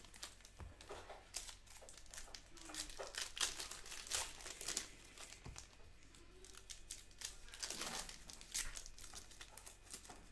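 Plastic wrappers of sealed trading-card packs and box wrap crinkling and rustling in irregular crackles as the boxes are opened and the packs handled.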